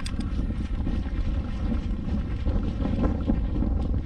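Wind rumbling on the microphone while someone walks on a gravel track, steps crunching underfoot, with one sharp click at the start.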